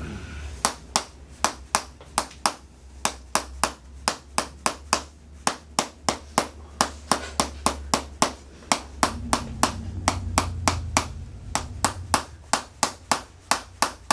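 Handheld chiropractic adjusting instrument delivering rapid, evenly spaced sharp clicks, about three a second, as it taps along the lumbar spine.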